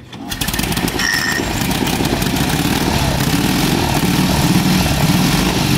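1946 Indian Chief's side-valve V-twin engine firing up just after the start and then running steadily at idle.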